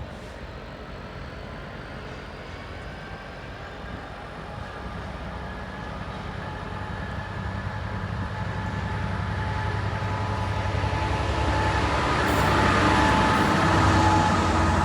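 A train approaching through the station, its low rumble growing steadily louder, with steady high-pitched tones from the wheels on the rails building near the end as it draws close.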